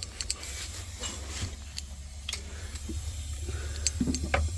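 Nitrogen hissing out of a cut capillary tube on a refrigerator's sealed system, showing that gas is flowing through to the evaporator. Scattered sharp clicks from handling tools and tubing, over a steady low hum.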